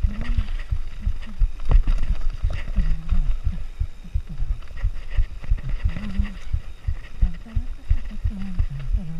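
Nukeproof Mega mountain bike clattering and thumping over a rough downhill trail, heard from a bike- or rider-mounted camera: a rapid, irregular run of low knocks from the wheels and suspension hitting roots and rocks, with light rattling above.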